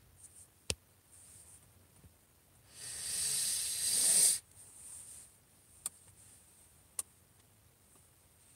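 A long breathy exhale close to the microphone, lasting about a second and a half and swelling before it stops, set among a few faint clicks.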